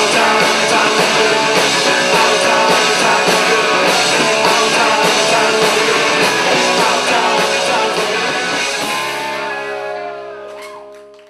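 Live rock band playing loud on electric guitars and drums with crashing cymbals. About nine seconds in the drums stop and a last chord is held and fades out as the song ends.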